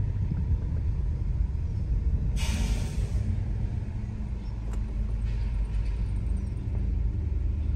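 Steady low rumble inside a car crawling forward in a queue of traffic, with a brief hiss about two and a half seconds in.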